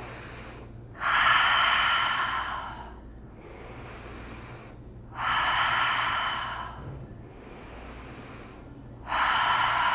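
A woman breathing deeply: quiet inhales through the nose and three long, audible sighs out through the mouth, about four seconds apart.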